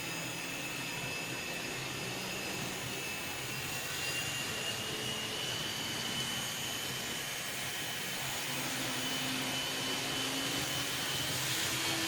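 N-scale model locomotive running on KATO Unitrack tight-radius curves: a steady motor whine that rises slightly in pitch partway through, over a steady hiss of wheels rolling on the rails.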